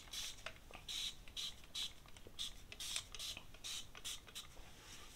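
Spray bottle spritzing liquid onto hair in a quick series of short hisses, about two or three a second, which stop about four and a half seconds in.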